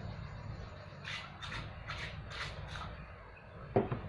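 Metal mop handle sections being twisted apart: a quick series of about six short rasps from the joint, then a single knock near the end as a tube is set down on the table.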